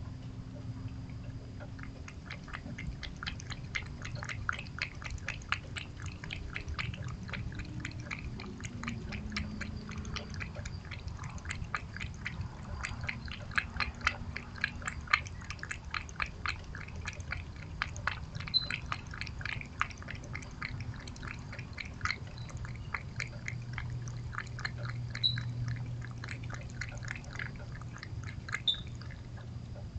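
A cat lapping chicken broth from a steel bowl: a steady run of small wet clicks, about three or four a second, starting a couple of seconds in and stopping near the end.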